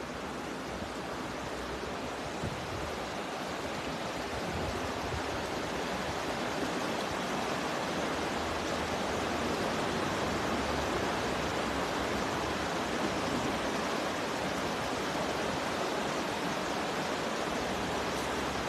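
Steady rushing of flowing water, an even hiss with no distinct events, growing a little louder over the first few seconds.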